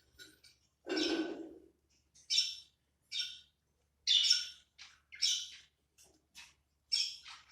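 Budgerigars chirping: a string of short, separate high chirps, with one longer, fuller call about a second in.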